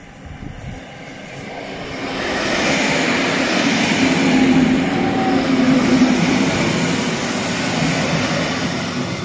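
Electric multiple unit passenger train passing close by: wheel-on-rail running noise with a steady low hum, building over the first two seconds, loudest through the middle, then slowly easing off.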